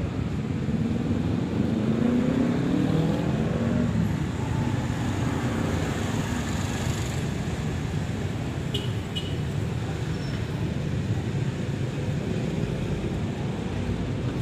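Steady roadside traffic rumble. In the first few seconds one vehicle's engine grows louder and climbs in pitch as it goes by.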